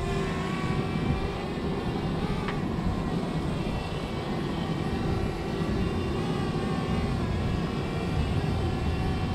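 DJI Spark quadcopter's propellers giving a steady multi-tone whine as the drone flies back toward the pilot, over a constant low rumble.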